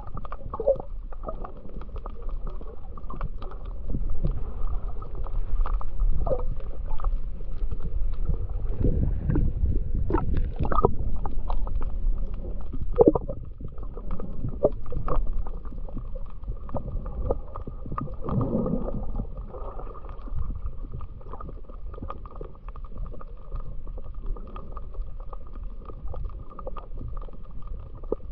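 Muffled underwater noise heard through a submerged camera's housing: a steady low rumble of water with scattered clicks and a few gurgles.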